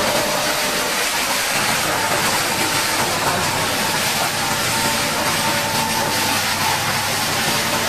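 High-pressure water jet spraying in a steady hiss, with a faint steady machine hum underneath.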